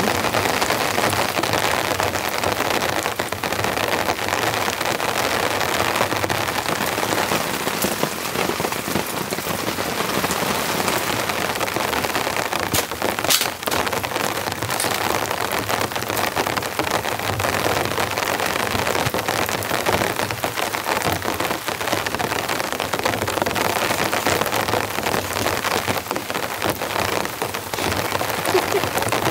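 Heavy rain pouring down steadily in a dense, even hiss, with a few sharp knocks about thirteen seconds in.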